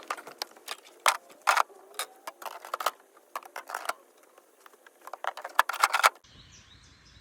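Clear plastic drawers and shelves clattering and clicking as they are slid into the rails of a Dometic van fridge: a quick, irregular run of sharp clicks and knocks that stops about six seconds in.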